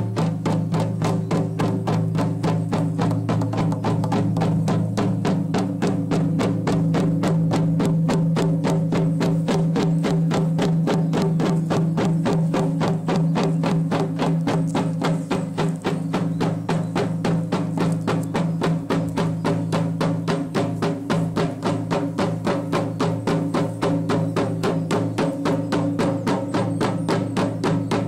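A group of large handheld frame drums beaten together with padded beaters in a fast, steady, unbroken rhythm, the drumheads' low ringing carrying on underneath the strikes.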